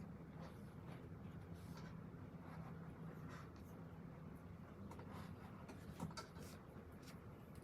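Faint scratching of a pen writing on paper in short irregular strokes, over a steady low hum, with one slightly sharper tick about six seconds in.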